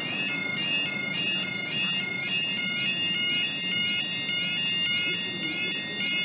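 Level crossing yodalarm sounding its repeating warble, about two and a half cycles a second, warning road users that a train is approaching and the barriers are about to come down.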